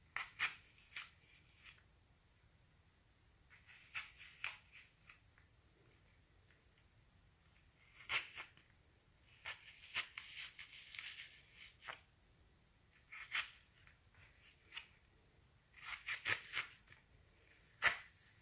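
A kitchen knife cutting and scraping the core out of a raw apple: short crisp cuts and scrapes in irregular clusters, with quiet pauses between.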